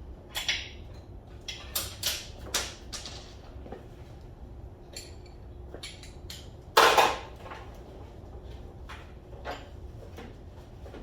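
Metal tools and parts clinking and knocking during hands-on work on a car, a string of light clicks with one louder metallic clank about seven seconds in.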